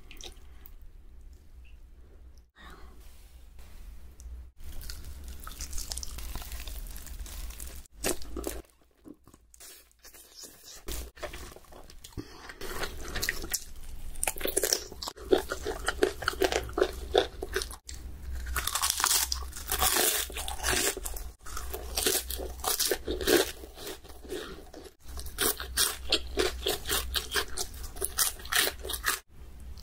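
Close-miked crunching and chewing of crispy fried chicken taken in big bites, sparse at first, with a short quiet gap, then dense and loud through the second half.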